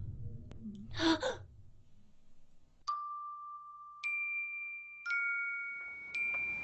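A sharp breath about a second in, then a slow run of single chiming bell notes, one about every second, each struck and left ringing on.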